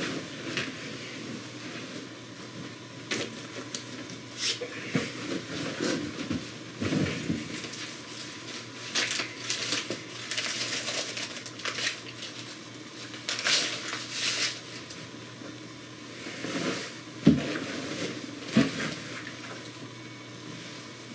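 Paper food wrapper crinkling and rustling in irregular bursts as it is unwrapped and handled. Near the end come two sharp thumps: shoes set down on a wooden coffee table.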